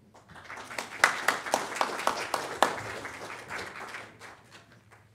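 Audience applauding, with a few sharp individual claps standing out. It builds in the first second and dies away near the end.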